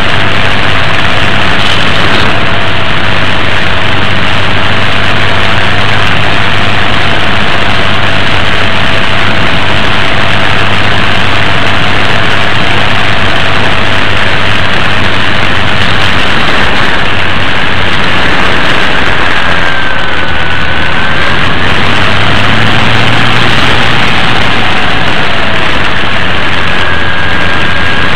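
RC airplane's motor and propeller running steadily, picked up by the plane's onboard camera microphone under a loud, steady rush of wind noise. The motor's tone wavers in pitch and dips briefly about twenty seconds in.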